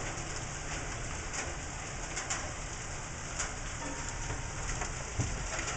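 Heavy rain pouring steadily onto flooded ground, a constant even hiss with a few sharper ticks of drops or hailstones striking.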